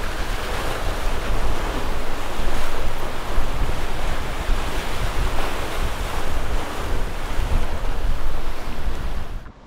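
Wind buffeting the microphone over the rushing wash of surf against the jetty, a steady noise with a heavy low rumble. It drops off sharply near the end.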